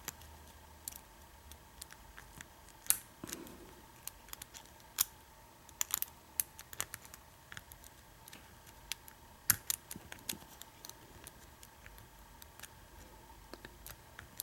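Small metallic clicks and scrapes of a lock pick and tension wrench working the pin stack of an American 1100 padlock, coming irregularly with a few louder clicks among many faint ones.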